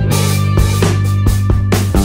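Rock music with a steady drum beat over sustained bass notes.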